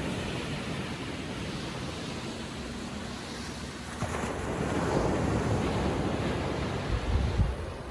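Small ocean waves washing onto a sandy beach in calm seas, a wave breaking and swelling about four seconds in. Wind buffets the microphone with low rumbles near the end.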